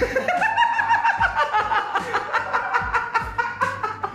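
Background song with a steady drum beat, a little under one and a half beats a second, under a high voice holding long notes.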